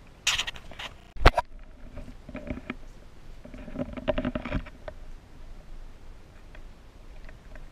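Handling noise on a handheld camera being turned round: a brief rustle, a sharp knock about a second in, then two spells of softer rubbing and scuffing.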